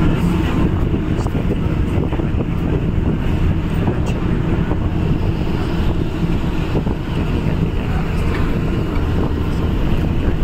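Loud, steady wind buffeting the microphone, heavy in the low end.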